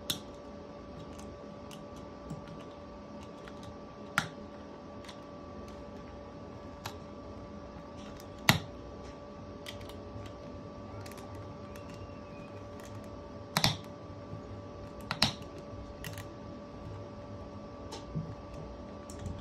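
Scattered small clicks and taps of a screwdriver and the wheel as the beadlock ring screws on a 2.2-inch RC crawler wheel are tightened one by one, the sharpest tap about eight and a half seconds in. A steady hum runs underneath.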